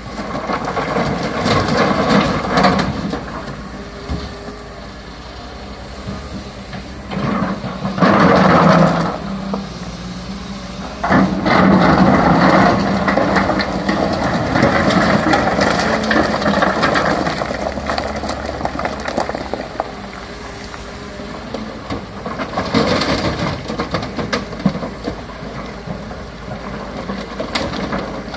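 CAT 320 hydraulic excavator's diesel engine running with a rough mechanical noise over it, rising in level twice as the machine works under load: briefly about eight seconds in, then for several seconds a little later.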